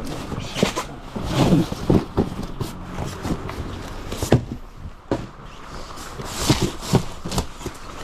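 Cardboard cases of food being lifted, slid and set down, with irregular knocks and thumps and scraping rustles in between; the sharpest knock comes about four seconds in.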